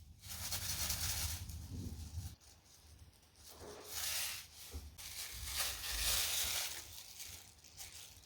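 Soft close-miked rustling and crinkling in three bursts, from food being handled.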